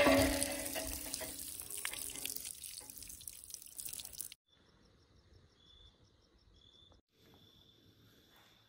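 Water pouring from a tap pipe and splashing onto a stone floor, loud at first and fading. It cuts off abruptly a little after four seconds in, leaving faint crickets chirping.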